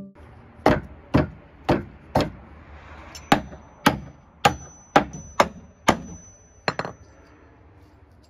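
Claw hammer striking wooden pallet boards, about a dozen sharp blows at roughly two a second, the last two close together. A thin high ring hangs over the middle blows.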